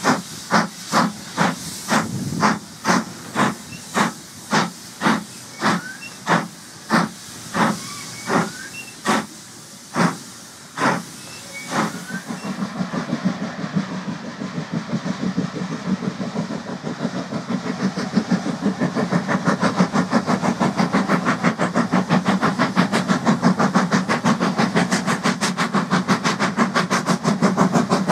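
Avonside saddle-tank steam locomotive working hard with a heavy freight train, its exhaust beats sharp and distinct and getting slower and further apart. About twelve seconds in the sound changes to a faster, continuous chatter of exhaust over a steady rumble from a train with a locomotive at each end.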